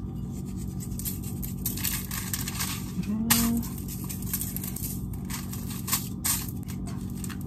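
Coarse salt being pinched from a bowl and sprinkled onto mackerel fillets lying on aluminium foil: light crackles and taps, with a couple of sharper foil crinkles about six seconds in as a fillet is handled. A steady low hum runs underneath.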